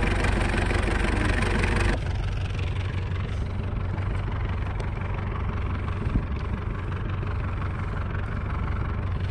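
A fishing boat's engine running steadily with an even low drone; the sound changes abruptly about two seconds in, and there is a light knock a little past the middle.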